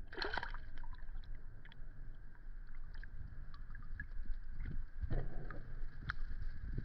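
Water sloshing and splashing as a spearfisher moves through a river, with a low steady rumble and scattered small clicks. A louder splash comes right at the start and another about five seconds in.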